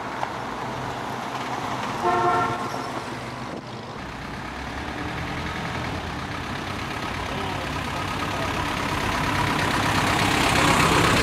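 Vintage cars driving past on a paved road. A car horn gives one short toot about two seconds in, and the engine and tyre noise of a classic Mercedes-Benz saloon builds as it approaches and passes close near the end.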